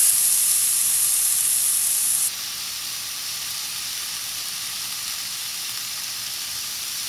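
Thinly sliced ribeye steaks sizzling on the grate of a Ninja Woodfire electric grill, a steady hiss. It drops suddenly to a quieter sizzle about two seconds in.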